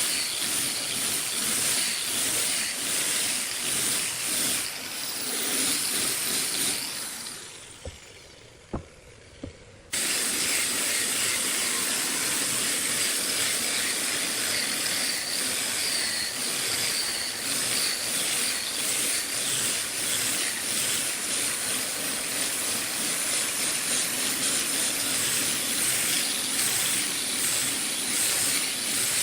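Steady loud hiss of workshop noise. It fades out about seven seconds in, leaving two short clicks, then cuts back in suddenly about three seconds later and runs on evenly.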